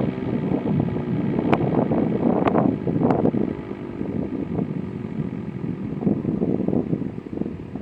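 Wind gusting across the microphone outdoors, an uneven rumble with a few sharp buffets.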